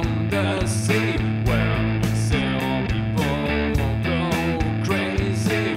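Rock band music playing with no vocal line heard: strummed electric guitar over a steady bass line and drums.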